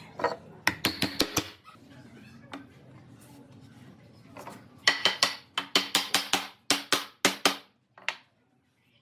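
Sharp knocks with a metallic ring, struck by hand in two runs: about five quick ones near the start, then around ten in a steady rhythm of roughly four a second from about five seconds in.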